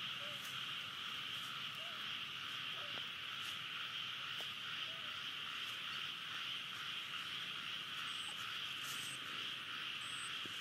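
Steady chorus of calling wildlife from the surrounding forest, an even high drone, with faint short chirps about every second and a half and a few brief high peeps near the end.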